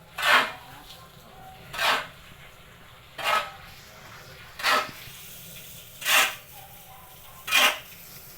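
Sawdust mushroom substrate being mixed in regular strokes: six short swishing scoops, about one and a half seconds apart.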